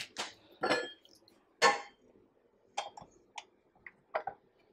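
Stand mixer attachment being handled: a few sharp clinks and knocks, then a run of lighter clicks and ticks as a flat beater is worked onto the shaft of a KitchenAid mixer.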